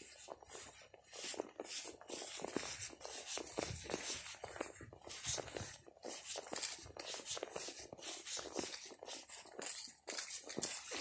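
Footsteps through dry, dormant lawn grass, an irregular crackling and rustling several times a second with some handling noise from the phone.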